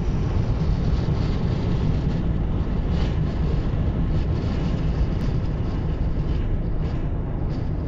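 Steady road and engine noise heard inside a car cruising at motorway speed: a constant low rumble from tyres and engine.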